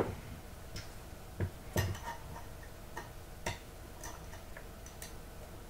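Several light, irregular clicks and taps, the strongest near two seconds in: a pin punch and the small steel parts of a KSA Cricket .22 bolt-action being handled while pressing down on the trigger spring to free the trigger pin.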